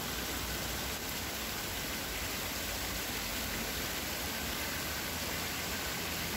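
Water spilling over the edges of a granite plaza fountain into its shallow stepped basins: a steady splashing hiss that does not change.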